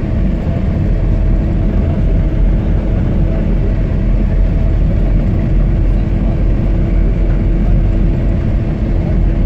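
A minibus engine and road rumble heard from inside the cabin while driving on a snow-covered road: a steady low drone with a held hum over it and no changes in pace.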